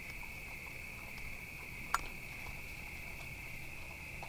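Faint, steady chorus of night insects trilling in one high band, with a single sharp click about two seconds in.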